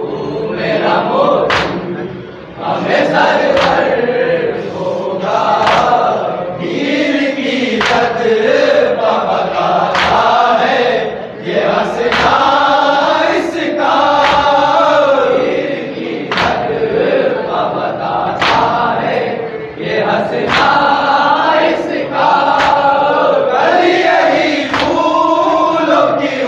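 A group of men chanting a tarahi salam, a Shia mourning chant, in chorus. Sharp slaps of hands striking chests (matam) fall in time with it about every two seconds.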